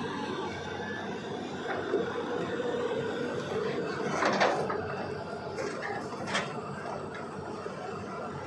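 CAT 320DL long-arm excavator running steadily, its diesel engine and hydraulics working, with four short knocks from the machine and bucket, the loudest about four seconds in.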